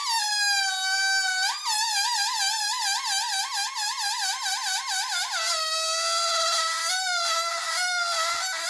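A rubber balloon deflating, the air escaping through its stretched neck in a continuous high squeal that wavers rapidly in pitch. The pitch slides gradually lower, jumping about a second and a half in and again about five seconds in.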